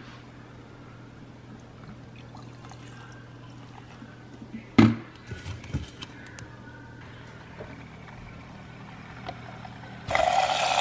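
Coffee creamer being poured from a plastic bottle, with a sharp knock about halfway through and a few lighter clicks of bottle and lid on the stone counter over a low steady appliance hum. Near the end a small kitchen appliance motor starts suddenly with a loud steady whir.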